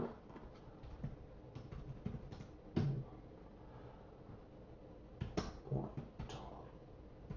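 A few scattered computer keyboard keystrokes, short separate clicks, over a low steady room hum.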